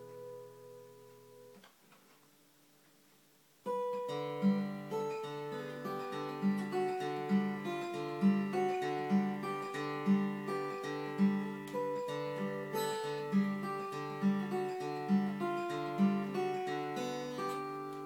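A Yamaha FG110 red-label acoustic guitar with a laminate top and fairly new Martin 11-gauge strings, played fingerstyle. A chord rings out and fades to a short silence. From about four seconds in comes a steady fingerpicked pattern of arpeggiated chords over a regular bass note.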